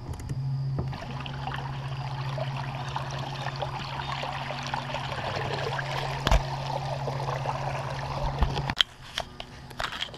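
Water rushing and lapping along the hull of a small boat under way, over a steady low hum. A sharp knock comes about six seconds in, and near the end the hum and water noise cut off suddenly, leaving a few light clicks.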